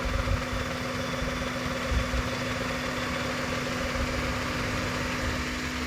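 Maruti Suzuki WagonR K10's three-cylinder petrol engine idling rough and misfiring, with heavy engine vibration. The misfire comes from the middle cylinder not firing, which the mechanic traces to its ignition coil or spark plug.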